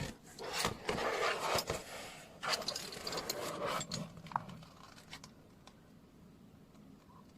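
Rustling and scraping with light metallic clinks from a studded leather dog collar being handled, for about four seconds, then only a few faint ticks.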